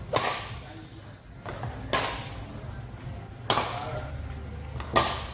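Badminton rackets striking a shuttlecock in a rally of high clears: four sharp hits about every one and a half to two seconds, each followed by a short echo off the hall.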